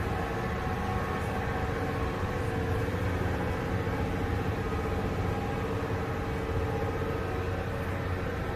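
Steady mechanical drone with several held tones over a low hum: the room noise of a large exhibition hall.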